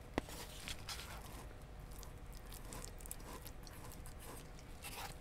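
Quiet mealtime sounds: faint, scattered clicks and taps of a spoon against bowls, with one sharper click just after the start.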